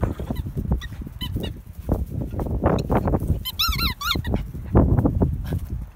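Shih Tzu mouthing a squeaky rubber ball, giving a few high, wavering squeaks a little past the middle. Rustling and thumps of movement run throughout.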